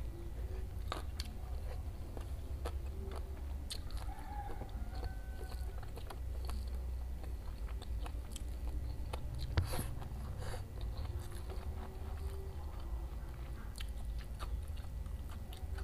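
Close-miked eating: biting and chewing food, with crunchy bites and many small mouth clicks, over a low steady hum. A sharper click comes about nine and a half seconds in.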